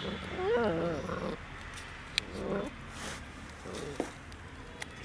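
Puppy whimpering: a long, wavering whine near the start, then two shorter whines about two and a half and three and a half seconds in, with a few faint clicks between.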